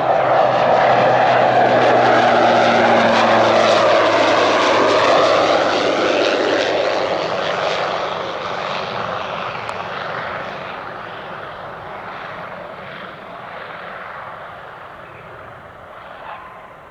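Pilatus PC-12's single turboprop engine and propeller passing close on landing. It is loudest in the first few seconds, sweeps down in pitch as it goes by, then fades steadily as the aircraft moves away.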